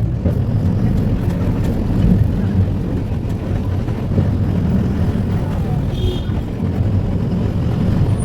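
Steady low rumble of a moving road vehicle's engine and road noise, with a brief high-pitched tone about six seconds in.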